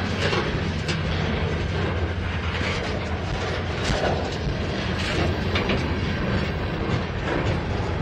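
Freight train cars (lumber-loaded centerbeam flatcars, then boxcars) rolling past: a steady rumble of steel wheels on the rails, with scattered clicks and clacks from the wheels.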